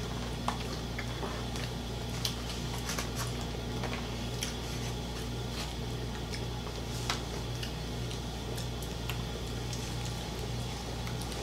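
Quiet eating with bare hands: scattered light clicks and smacks of chewing and of fingers picking at fried chicken and sides on plates, over a steady low hum.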